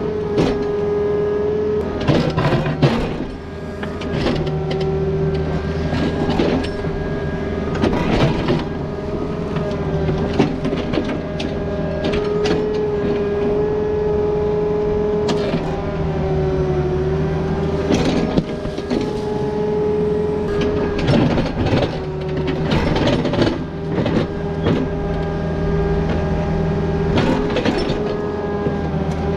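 Takeuchi TB260 mini excavator digging a trench in rocky soil. Its diesel engine runs steadily under a held whine, with frequent sharp clanks and scrapes as the bucket strikes and drags through rock.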